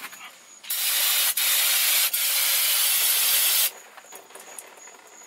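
Aerosol can of brake cleaner spraying onto the transfer case housing: a steady hiss lasting about three seconds, broken twice by a momentary catch, then cut off.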